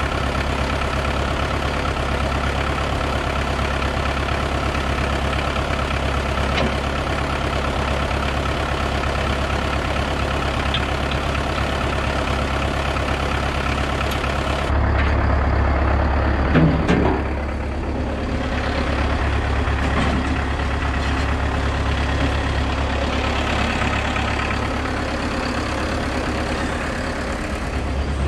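Diesel engine of digging machinery running steadily with a low drone. About halfway through the sound changes abruptly, followed shortly by a brief clunk.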